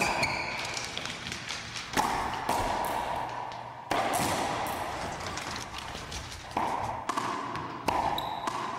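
Racquetball rally: the hollow rubber ball cracked by racquets and smacking off the court walls and floor, sharp impacts every second or so, each ringing on in the echoing enclosed court.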